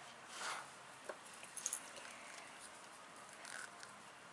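Faint swishes of hands rolling Play-Doh into a strip on a tabletop, with a few light clicks and taps about a second in.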